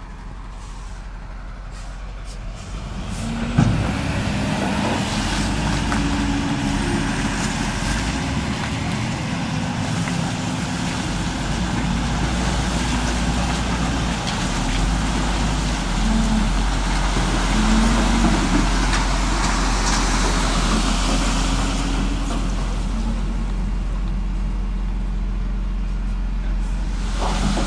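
Heavy diesel engines of a dump truck and a wheel loader running loud and steady while the truck tips its load of soil. The sound jumps up suddenly about four seconds in, after a quieter start.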